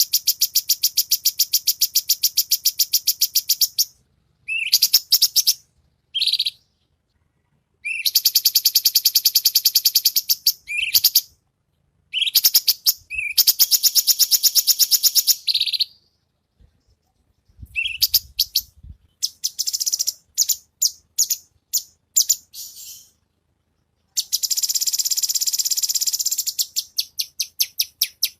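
Cucak cungkok songbird singing in bouts of long, very rapid high trills, each lasting up to about four seconds, broken by short pauses and a stretch of looser separate chirps in the middle.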